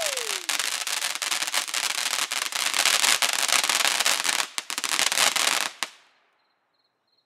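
Ground firework fountain spraying sparks: a steady hiss thick with sharp crackling pops, which dies away about six seconds in.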